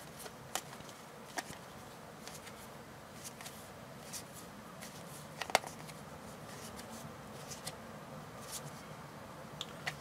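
Game cards being slid apart and fanned through by hand: faint, scattered soft ticks and rustles of card edges, with one sharper click about five and a half seconds in.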